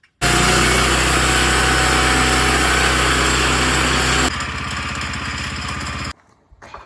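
Gasoline engine of a Woodland Mills band sawmill running under load while milling 2x4s from a log. It drops to a lower level about four seconds in and cuts off suddenly about six seconds in.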